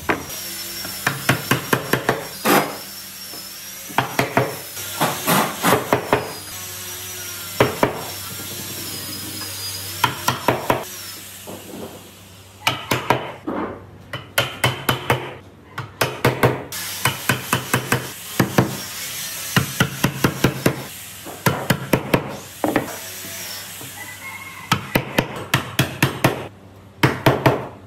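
Wooden mallet knocking pine slats down into the mortises of a round pine tabletop: quick runs of sharp wooden knocks with short pauses between the runs.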